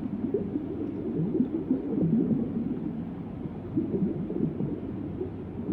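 Muffled underwater sound: a low rumble with wavering, murmuring tones, dull and with no high end.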